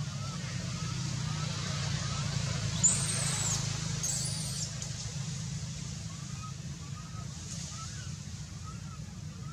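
Newborn macaque crying: two short, high-pitched squeals that rise and fall, about a second apart, around three seconds in.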